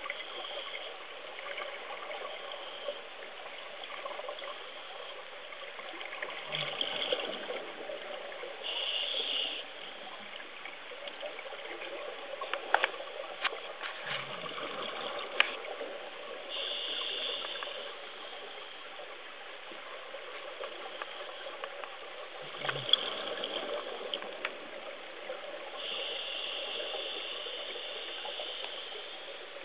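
Underwater sound picked up by a submerged camera: a steady wash of water, with louder bursts every few seconds from a scuba diver's exhaled bubbles and a few sharp clicks in the middle.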